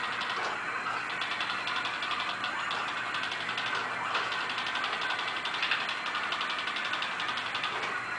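iRobot Create's wheel drive motors and gearboxes running as the robot drives, a steady mechanical sound with a fast, even ticking.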